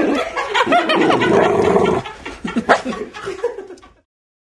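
Alaskan Malamute puppy vocalizing, with bending, pitched yelps and whines for about two seconds, then quieter scattered sounds and a sharp click; all sound stops suddenly near the end.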